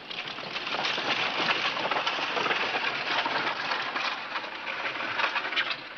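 Horse-drawn stagecoach on the move: a dense, steady clatter of hooves with rattling wheels and harness.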